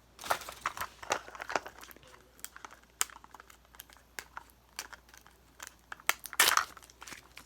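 Thin plastic wrapping crinkling and tearing as it is peeled by hand off a small toy, in short irregular crackles, loudest about six and a half seconds in.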